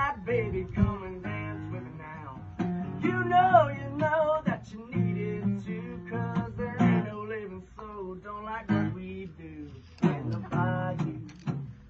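Acoustic guitar strummed in a bluesy rhythm, with a man's voice singing wordless melodic phrases over it at moments.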